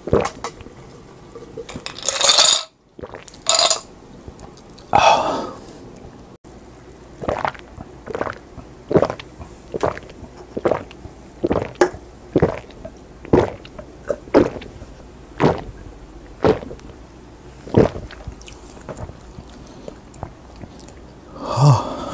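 Close-miked gulping of carbonated soda drunk straight down from a glass: a steady run of swallows, about one to two a second, with loud breathy exhales in the first few seconds and a short throaty sound near the end.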